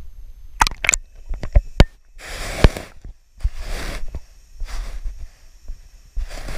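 GoPro in its waterproof housing being handled and pushed under the water: a few sharp knocks and clicks on the case, then four short bursts of rushing, sloshing water noise as it goes under and is set on the bottom.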